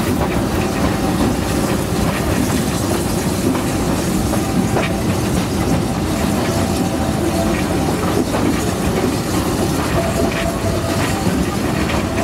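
Steam train running, heard from an open carriage behind the locomotive: a steady, loud rumble with occasional clacks from the wheels on the rails.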